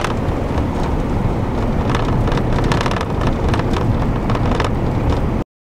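Road noise heard from inside a moving pickup truck's cab: a steady engine and tyre rumble on a snow-covered road, with faint knocks and rattles over bumps. It cuts off suddenly near the end.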